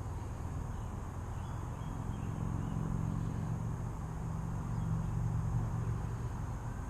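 Low, steady rumble of a motor vehicle's engine, swelling a little in the middle and easing off toward the end.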